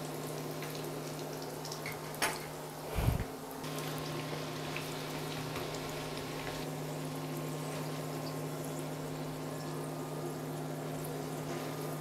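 Sunflower oil sizzling steadily around petulla dough frying in a pan, with a steady low hum underneath. A fork clicks against the pan twice, about two and three seconds in.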